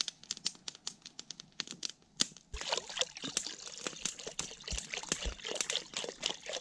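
Water being poured from a plastic canister into a metal cooking pot hanging over a campfire, a steady splashing pour that starts about two and a half seconds in. Before it, scattered sharp clicks.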